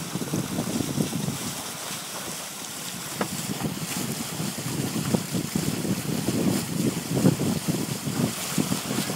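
Water rushing and splashing along the hull of a Hunter Vision 32 sailboat moving under sail, with wind buffeting the phone's microphone in irregular gusts.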